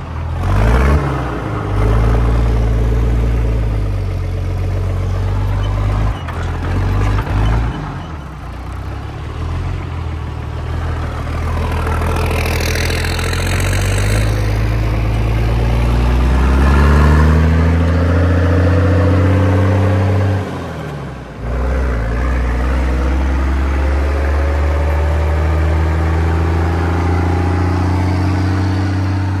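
Rat truck's diesel engine, running on burnt motor oil, pulling down the road with the engine pitch climbing through the gears. About twenty seconds in, it dips sharply at a gear change and then climbs steadily again, with wind and road rumble coming through the open cab.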